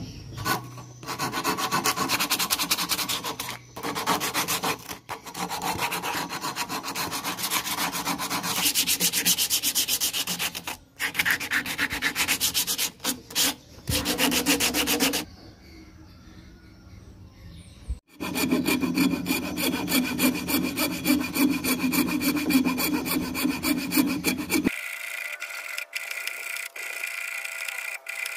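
Hand tools working a wooden slingshot frame held in a vise: a spokeshave shaving and sandpaper rubbing the wood in quick, even back-and-forth strokes, broken by a few short pauses. Near the end the sound turns thinner and steadier.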